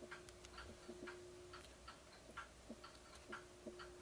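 Faint, fairly regular light ticking clicks, about three a second, over near silence, with a faint steady hum in the first half and again near the end.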